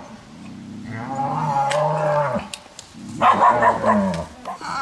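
Cattle mooing: two long calls, the second louder than the first.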